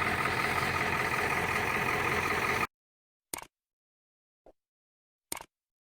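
Toyota Camry 2.4-litre four-cylinder engine idling steadily while air is bled from the refilled cooling system. The sound cuts off abruptly a little under three seconds in, followed by three short faint clicks.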